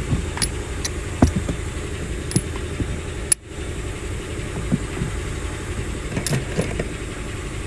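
Small metal gas canisters (whipped-cream chargers) clinking sharply a few times at irregular moments as they are drawn out with a magnet, over a steady low hum. Loose canisters like these rattling inside the car are the cause of the noise the customer complained of.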